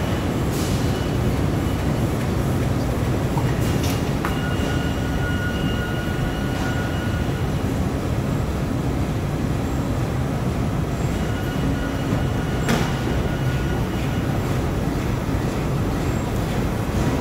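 Steady mechanical din of several high-speed roll die-cutting machines running, punching paper cup fans. A few sharp clicks and some faint whining tones sit over the din.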